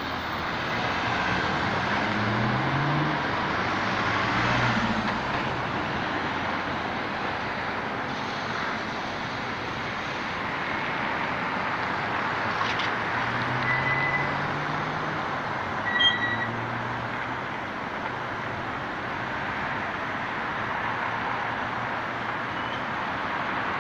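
Rush-hour road traffic: a steady wash of cars and buses passing, with engines rising in pitch as vehicles pull away a few seconds in and again a little past halfway. There are brief high squeaks about two-thirds of the way through.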